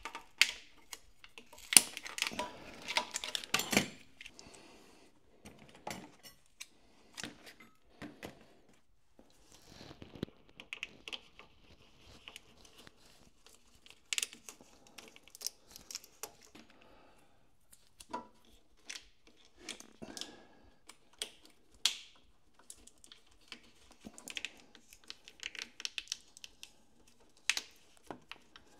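Scattered small clicks, snips and plastic rustles of hands cutting and fitting corrugated plastic wire loom over wiring, with a busier run of clicks in the first few seconds.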